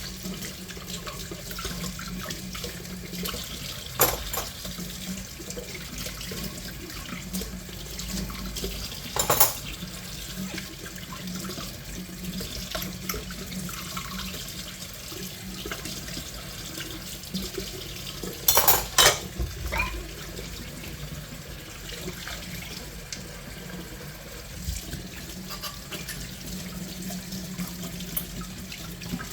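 Tap water running steadily into a sink while dishes are washed, with a few sharp clinks of dishes or utensils, the loudest cluster about two-thirds of the way through.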